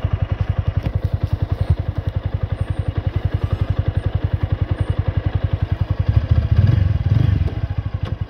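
Motorcycle engine idling with an even, rapid low pulse of about ten beats a second. About six seconds in it gets briefly louder and rougher, as the throttle is blipped a couple of times, then settles back.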